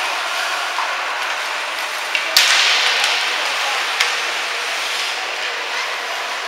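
Ice hockey play on the rink: a steady hiss of skates and arena noise, a sharp crack about two and a half seconds in with a hiss trailing for about half a second, and a lighter knock near four seconds.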